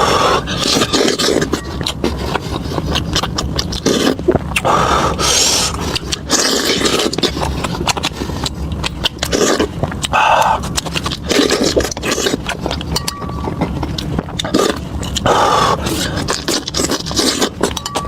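Close-miked eating sounds: chewing on lamb tripe and lamb brain, with many quick clicks and irregular bursts of noise.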